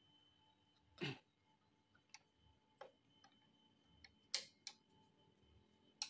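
Faint, irregular clicks and ticks from a hose clamp being handled and fitted around a motorcycle's front fork leg, about seven or eight in all. The loudest comes just past the middle.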